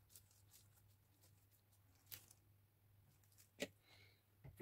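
Faint rustling and crackling of a gloved hand working crumb topping over cherry tomatoes on parchment paper, with a sharp click about three and a half seconds in. Otherwise near silence over a low hum.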